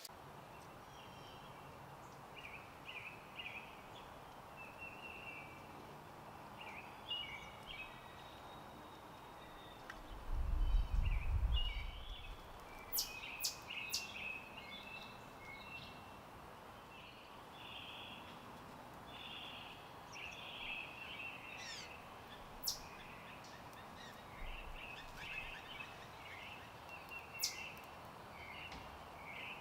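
Small birds chirping and calling over a steady outdoor background hiss. A low rumble stands out about ten seconds in, and a few sharp clicks come near the middle and later on.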